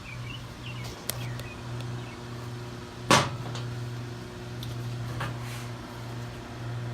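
Handling knocks over a steady low electrical hum: one sharp knock about three seconds in, with a couple of fainter taps before and after.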